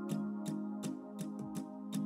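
Slow instrumental music of sustained held tones under a steady ticking, about three ticks a second.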